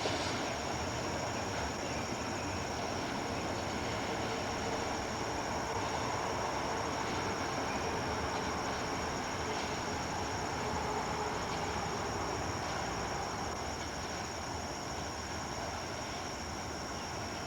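A steady, unbroken rumble with a high, continuous trill above it.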